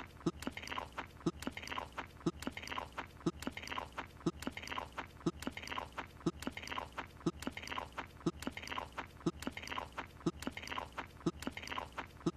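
Cartoon chewing of a croissant: wet, open-mouthed munching with sharp lip-smacking clicks, repeating in an even looped rhythm.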